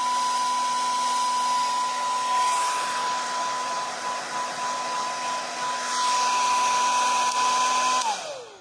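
Handheld electric hair dryer blowing with a steady whine. It is switched off about eight seconds in, and its pitch falls as the motor winds down.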